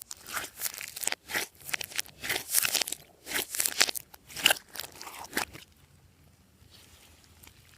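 Glossy slime being worked by hands, a dense run of crackling, crunchy squishes and pops that stops a little over two-thirds of the way through.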